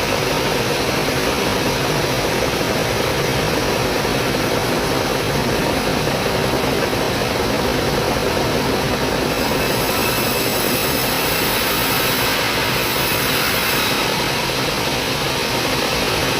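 Sawmill band saw running steadily. A brighter, higher hiss comes in for a few seconds past the middle.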